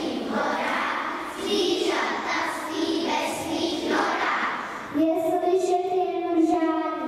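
Children's voices reciting verse together for about five seconds, then the children's choir begins to sing, holding a long note.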